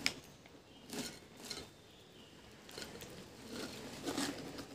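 A hand rummaging in a Pringles can: a few sharp clicks in the first second and a half, then soft scraping and rustling of the stacked chips against the cardboard tube.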